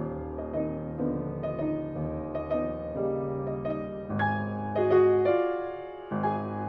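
Piano-led background music with held chords and a slow melody. The low notes drop out briefly near the end.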